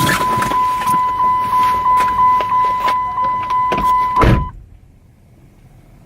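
A car's warning chime pulsing about three times a second, which stops about four seconds in with the thud of a car door shutting. After that there is only a faint low hum.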